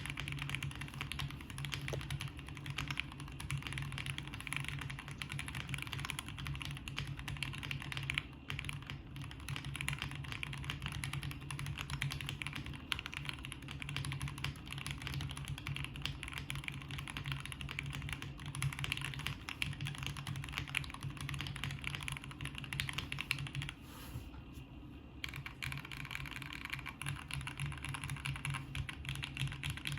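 Typing on a Qwertykeys QK65 mechanical keyboard with lubed and filmed Gateron Ink Black V2 linear switches on an aluminium plate and GMK keycaps: dense, continuous keystrokes with a brief lull about four-fifths of the way through.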